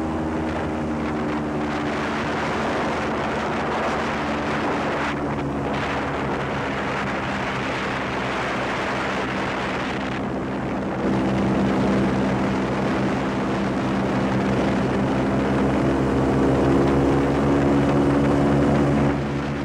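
Airboat's engine and large air propeller running at speed: a loud, steady drone with a layered engine hum. It gets louder about halfway through and drops back near the end.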